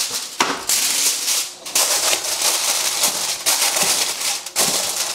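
Aluminium foil crinkling and crackling as a sheet is laid over a roasting dish and pressed and crimped down around it by hand, in several spells with short breaks.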